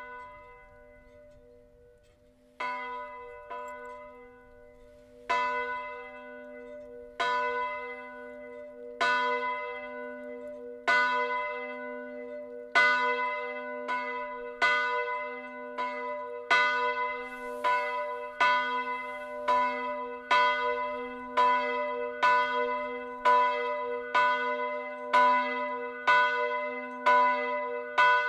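Swinging church bell of about 350 kg, cast in bronze in 2000 by Janusz Felczyński's foundry and tuned to B, starting up under its automated drive. One strike comes at the start, then strokes about two seconds apart that come closer and louder as the swing builds, reaching about one a second. Each note rings on into the next.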